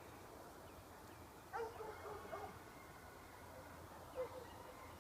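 A dog barking faintly a few times, short calls about one and a half seconds in, again soon after and near four seconds, over a quiet outdoor background.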